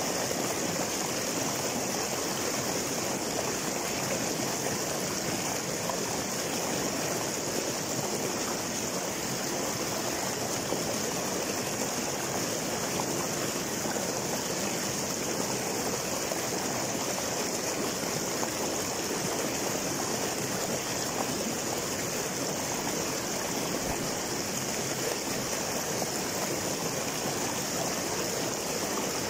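A small river rushing and splashing over boulders in a short cascade: a steady, unchanging rush of water with a bright hiss.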